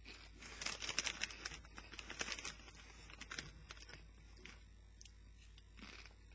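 Crunching of a Doritos guacamole-flavour tortilla chip being bitten and chewed, a dense crackle for about two seconds that thins to a few scattered crunches.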